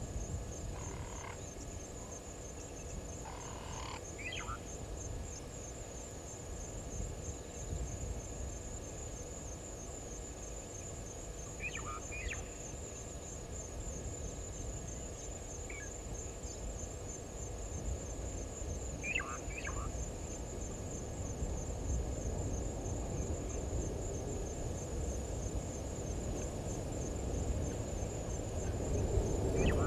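Steady, high, pulsing insect trill running on without a break. A few short bird chirps come through now and then, over a low background rumble.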